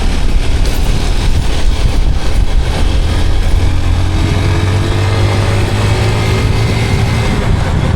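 Motorcycle being ridden along a road: its engine runs under steady road and wind noise. The engine note climbs slowly from a few seconds in as it gathers speed.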